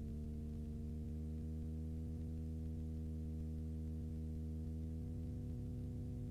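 Super Petrel amphibian's engine and propeller droning steadily in the cockpit on the approach to a water landing, a low humming tone of a few steady pitches that creeps slightly higher.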